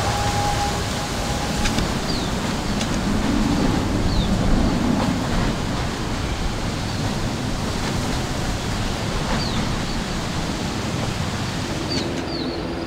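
ATR 72 twin turboprop climbing out after takeoff: a steady, broad engine roar, heaviest about three to five seconds in.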